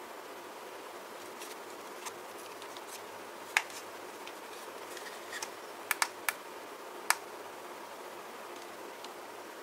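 A handful of sharp clicks and taps from objects being handled, the loudest about three and a half seconds in and a quick cluster around six seconds, over a steady hiss.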